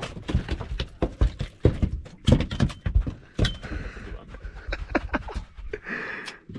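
A freshly landed flathead flapping on the carpeted deck of an aluminium boat: a rapid, irregular run of thuds and knocks.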